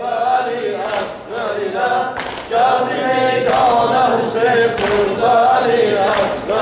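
Men's voices singing a Shia mourning elegy (mersiyye) unaccompanied, a slow chant of long held phrases with short breaths between them.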